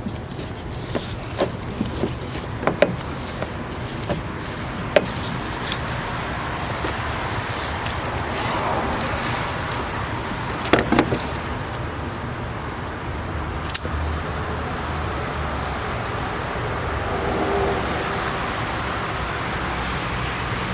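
Steady outdoor background noise with scattered sharp clicks and knocks of tools and parts being handled, and a low hum coming in about two-thirds of the way through.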